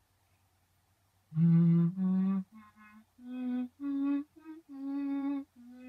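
A woman humming a slow, wordless tune of short held notes that mostly step upward in pitch, starting after about a second and a half of near silence.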